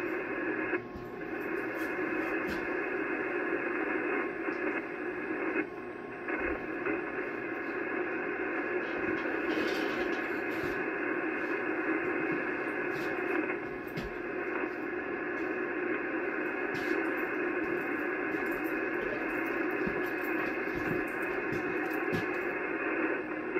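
Icom HF transceiver receiving on the 80-metre band in single sideband: a steady hiss of band noise and static, cut off sharply above and below by the receiver's narrow voice filter, with a few crackles of static.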